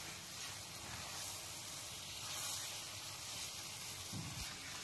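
Moong dal halwa sizzling steadily in ghee in a nonstick pan as it is roasted and stirred with a silicone spatula, with a soft low knock about four seconds in.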